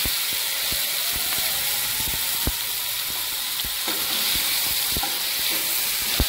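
Oil sizzling steadily in a kadai as potato wedges and a ground cumin-and-chilli paste fry, while a flat metal spatula stirs and clicks against the pan. The sharpest click comes near the end.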